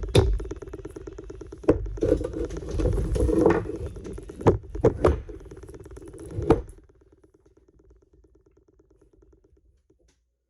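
Sharp metal knocks and clanks, with scraping and rattling between them, from hand tools working at a rusted Honda Civic front steering knuckle to free a stuck wheel hub. The loudest knock comes right at the start, and three come close together about four and a half seconds in. A steady hum runs underneath, and the working sounds stop about seven seconds in.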